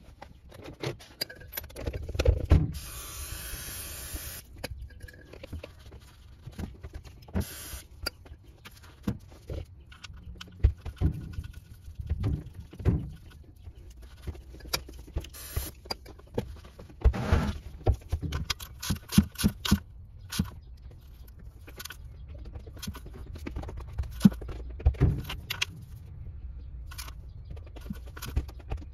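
Metal tools and parts clinking and knocking during hand work under a car at the oil pan, with an aerosol spray can hissing for about two seconds near the start.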